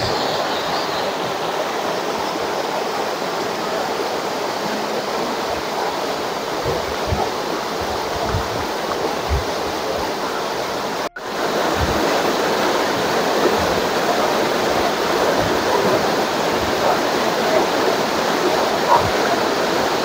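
Waterfall pouring down a rock face into a pool: a steady rush of falling water. The sound cuts out for an instant about eleven seconds in and comes back slightly louder.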